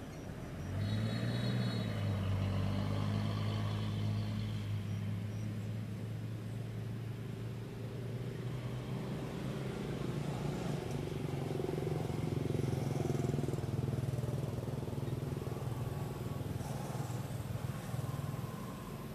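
A vehicle engine running steadily, coming up about a second in and holding a low hum, its pitch shifting about halfway through.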